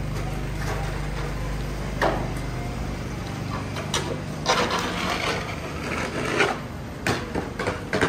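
Snow shovel scraping slush off wet pavement in short, irregular strokes, with knocks, over a low steady traffic rumble that fades after about three seconds.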